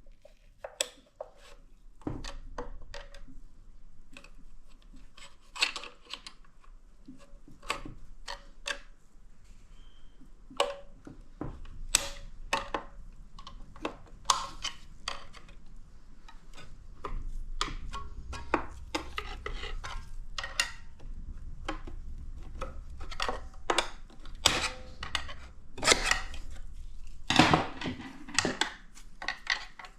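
Metal transmission parts and hand tools clinking, knocking and scraping at irregular intervals, some strikes with a short metallic ring, as an automatic transmission is taken apart by hand.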